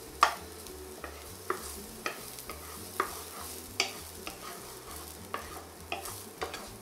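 Wooden spoon stirring sliced garlic in olive oil in a nonstick frying pan, knocking and scraping against the pan at irregular moments about every half second to a second. Under it is a faint, steady sizzle of the garlic frying gently in the oil.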